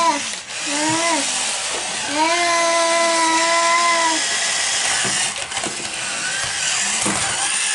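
Small electric motors and gears of remote-control toy bumper cars whirring steadily as they drive across a wooden floor. A child's drawn-out vocal "ooh" sounds over it, with one long held note from about two to four seconds in.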